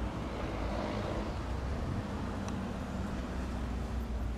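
Twin turboprop engines of a Bombardier CL-215T/415 water bomber droning steadily as the plane flies past low overhead.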